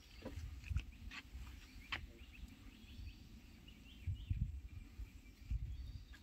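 Faint outdoor ambience: scattered short clicks and knocks, some low rumbling, and a few short high chirps about halfway through.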